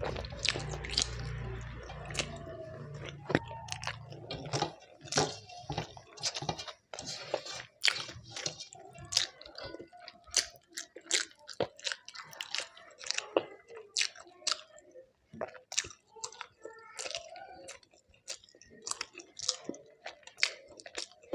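A person chewing and eating food close to the microphone: many short, irregular wet smacks and clicks of mouth and teeth.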